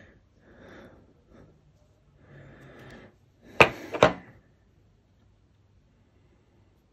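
Faint rustling and scraping of hands working a tube of modelling putty and a wooden applicator stick, then two sharp knocks about half a second apart, about three and a half seconds in.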